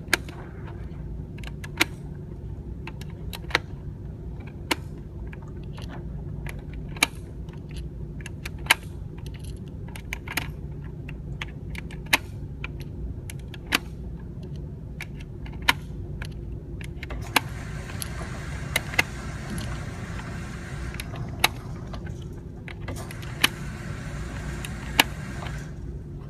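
Gunshots at a steady, deliberate pace, one every second and a half to two seconds, over a low steady rumble.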